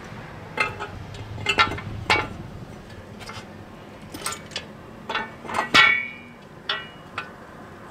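Metal Eley wall-mount hose reel clinking and knocking as its drum is fitted onto the wall bracket: about a dozen sharp metal clinks. The loudest comes a little before six seconds in and rings briefly.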